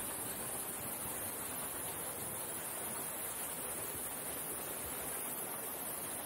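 Steady, even rushing noise of the outdoors, with a bright steady hiss high up and no distinct events.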